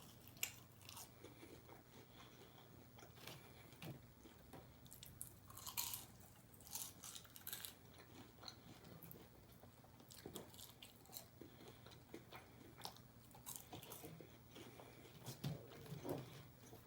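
Close-up eating sounds: a person chewing and biting crunchy fried chicken strips and fries, with scattered soft crunches and mouth clicks.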